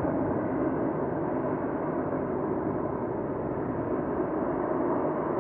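Airbus A330-343's Rolls-Royce Trent 700 jet engines heard from a distance during the landing rollout, a steady, even noise without any high hiss.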